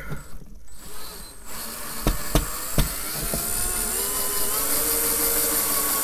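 Cordless DeWalt drill driving a screw: a few sharp clicks, then from about a second and a half in the motor runs steadily, its whine rising a little and then holding until it stops at the end.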